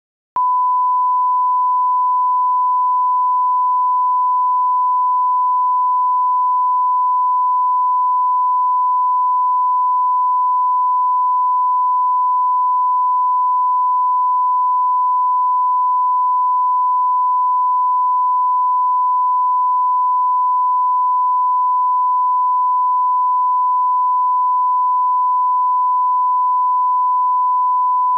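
Bars-and-tone 1 kHz line-up test tone: one pure, unchanging pitch that starts a fraction of a second in.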